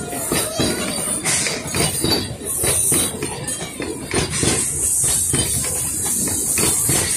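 Narrow-gauge wooden passenger carriages of a steam train rolling slowly past, wheels clacking and clanking irregularly over the rail joints, with a steady hiss joining about four seconds in.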